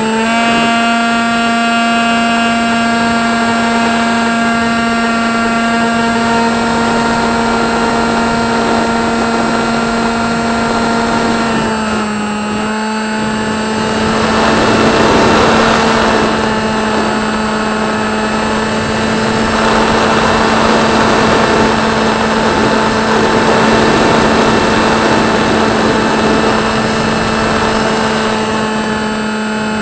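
Electric motor and pusher propeller of an AXN Clouds Fly Floater Jet RC plane, heard from a camera mounted on the plane: a steady whine that drops slightly in pitch partway through. A rush of air swells twice as the plane banks and dives.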